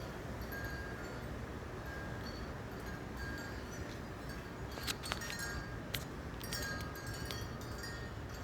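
Strong wind buffeting the microphone with a steady low rumble. Over it come scattered short, high ringing tones, with a few sharp clinks about five and six seconds in.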